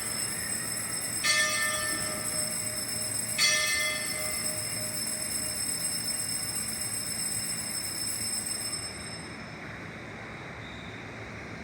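Sanctus bell rung at the elevation of the consecrated host: struck twice, about a second and about three and a half seconds in, its high ringing dying away by about nine seconds in.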